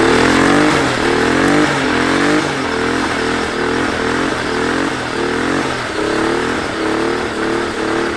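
Twin-turbo Nissan 300ZX's V6 engine at high revs during a burnout. The revs rise and fall in quick repeated sweeps, a few times a second.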